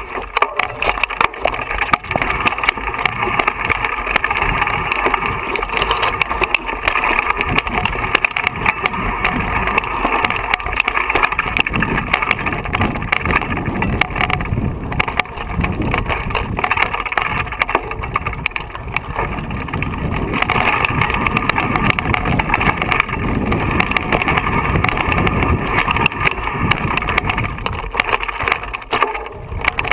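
Mountain bike riding down a rocky singletrack, with constant rattling and clatter of the bike and tyres over loose rock and gravel. The rumble grows heavier about halfway through.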